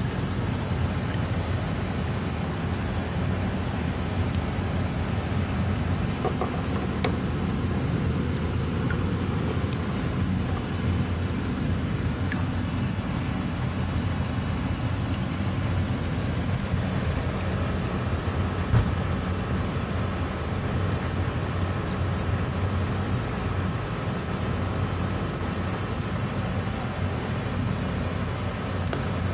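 Steady low rumbling background noise, with one short sharp knock about 19 seconds in.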